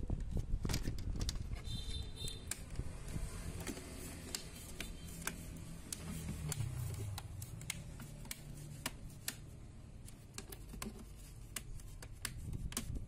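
Irregular light clicks and small snaps of plastic as fingers press and work along a laptop's white plastic screen bezel, over a steady low rumble.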